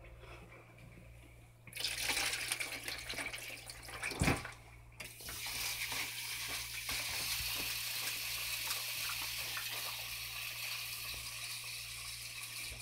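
Water running from a kitchen tap into a sink: a steady rush that starts about two seconds in, breaks off briefly after a single loud knock around four seconds, then runs on.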